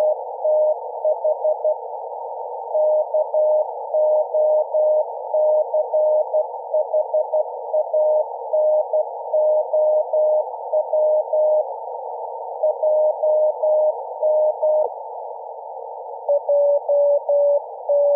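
Morse code (CW) signal heard through a shortwave receiver in CW mode: a tone of about 600 Hz keyed on and off in dots and dashes over a narrow band of receiver hiss. Near the end a click and a short gap come as the receiver is retuned, and then another keyed Morse signal starts.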